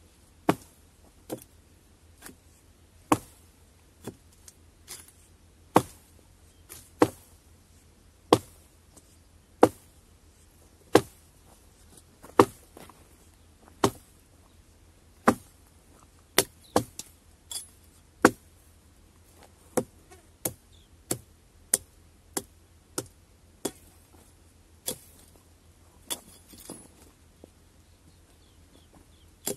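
Axe chopping into a felled tree trunk: a run of sharp blows, roughly one a second, coming quicker for a few seconds past the middle.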